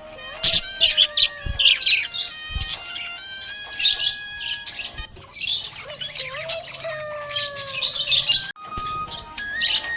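Budgerigar chirping and chattering in quick bursts, several times over, above background music that carries a melody of held, stepping notes.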